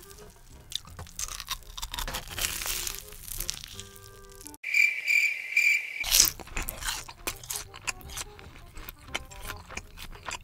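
Crisp crunching bites and chewing of a crumb-coated corn dog, close-miked eating ASMR, over soft background music. A little before halfway everything else drops out for a cricket-chirp sound effect of about three high chirps, and then the crunching resumes.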